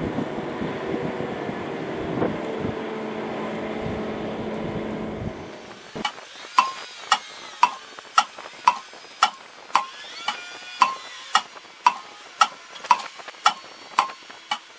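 A steady low engine-like drone with a few humming tones, which cuts off about five seconds in. Then comes a regular ticking beat, about two sharp ticks a second, each with a short ringing tone, like a clock.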